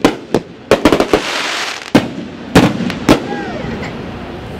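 Aerial firework shells bursting overhead: a quick run of sharp booms in the first second with a crackling hiss between them, then single booms about every half second until roughly three seconds in.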